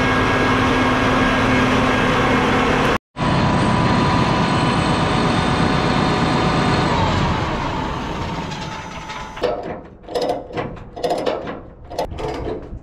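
A large engine running steadily at high speed, with a brief dropout about three seconds in. A few seconds later its pitch falls as it winds down and fades, leaving uneven, quieter mechanical rattling.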